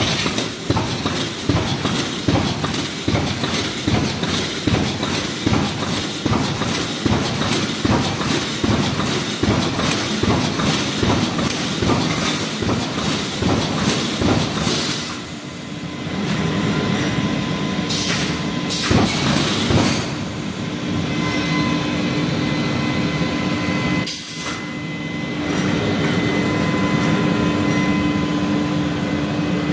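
Pneumatic wire mesh welding machine running: a fast, rhythmic clatter of welding strokes for about the first half, then a steadier mechanical hum with a few short, loud bursts of noise.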